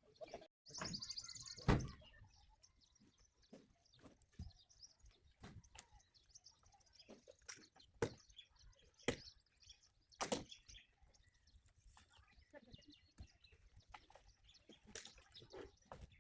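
Faint, scattered knocks and clicks spaced a second or so apart, with a brief bird chirping about a second in.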